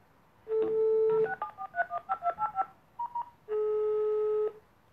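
A phone placing a call on speaker. A steady tone, then a rapid run of about a dozen keypad dialing beeps, two short beeps, and a steady tone of about a second.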